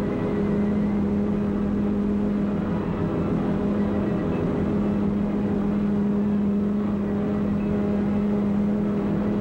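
A steady low hum over an even noisy rumble, unchanging throughout.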